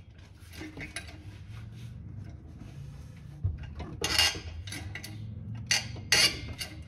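Metallic clinks and rattles as a jack is worked to slowly raise the engine, with a few sharper clanks in the second half.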